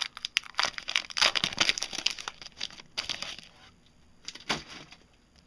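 Trading card pack wrapper crinkling and tearing as it is ripped open by hand, a dense crackle for the first three seconds or so, then only a few short rustles.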